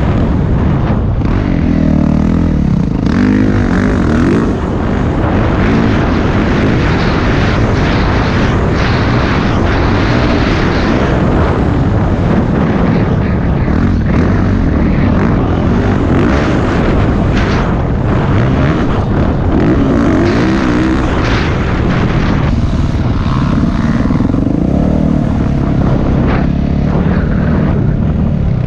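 Yamaha YZ450F dirt bike's single-cylinder four-stroke engine running hard, its pitch rising and falling over and over as it is revved up and backed off.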